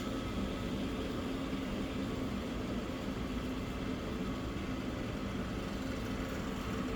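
Steady electric motor hum, a low drone with a faint higher tone above it, holding even throughout.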